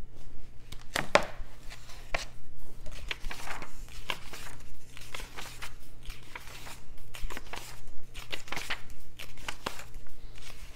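Pages of a glossy White Dwarf magazine being turned one after another: short rustles and flaps of paper, about one a second.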